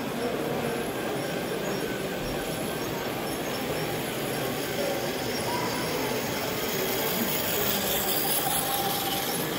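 Several toy trains running on a floor layout of plastic track, a steady mechanical running noise of small motors and wheels on track.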